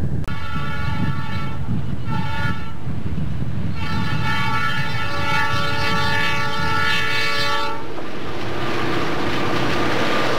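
Chicago Central & Pacific diesel locomotive's multi-tone air horn: two shorter blasts and then one long blast of about four seconds. After the horn stops, the locomotive's engine and wheels rumble, growing louder as it comes close near the end.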